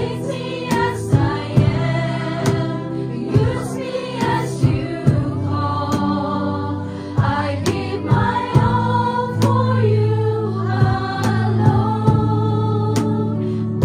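Female worship group singing a gospel song in harmony through microphones, backed by regular cajón beats and held low bass notes.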